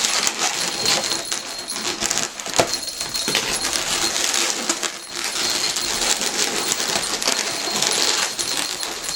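Inflated latex twisting balloons squeaking and rubbing against each other while being handled and wrapped, with a steady run of small clicks and rustles.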